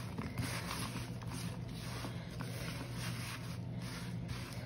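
Hands tossing oiled fingerling potatoes, green beans and sliced onion on a metal sheet pan, an uneven rustling and scraping against the metal, over a steady low hum.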